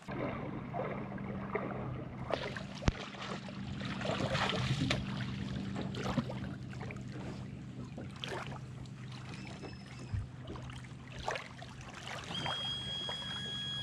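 Water splashing and lapping in the shallows, with wind on the microphone and a steady low hum underneath. A high steady tone starts near the end.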